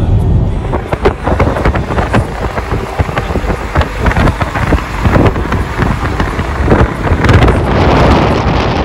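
Wind buffeting the microphone: a loud rushing rumble broken by irregular crackling gusts.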